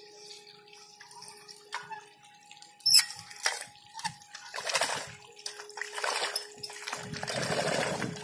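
Water and mud sloshing and splashing in uneven bursts as a CRIJAF amphibious weeder's two rotor cones and boat-shaped float are pushed through a flooded rice paddy, with a sharp knock about three seconds in.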